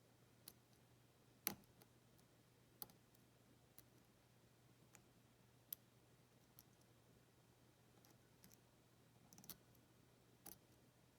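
Faint, irregular clicks of a hook pick working the pin tumblers of a Sesamee 533 padlock under tension, pins clicking as they set, the loudest about a second and a half in. A low steady hum runs underneath.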